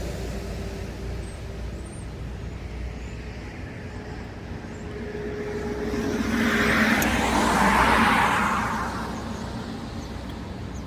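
A car passing by: a rush of road and tyre noise that rises, peaks and fades away over about three seconds in the second half, over a steady low hum.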